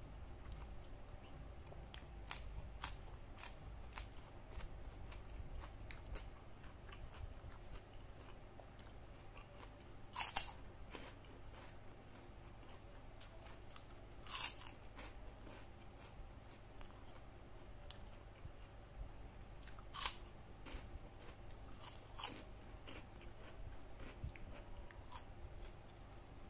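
Crisp fried cracker being bitten and chewed by hand-fed mouthfuls: four loud crunches spread through the stretch, with softer chewing clicks and crackles between them.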